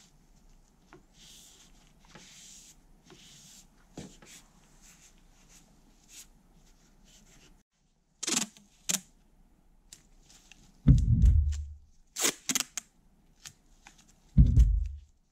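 Masking tape being pulled and torn off in short, sharp rips while strips are laid over a meat grinder's hopper, with two low thumps about a second long, the loudest sounds, from handling the grinder. Before that, faint soft rubbing of a cloth on a wooden handle.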